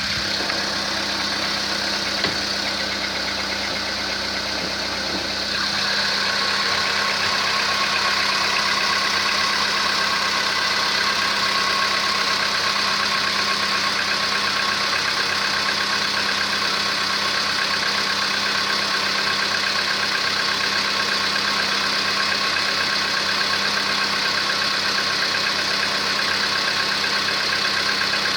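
Volkswagen Polo Sedan's 1.6-litre four-cylinder petrol engine idling steadily, which the owner suspects of piston knock even though revised pistons are fitted. About five seconds in, the sound changes and becomes a little louder, then stays even.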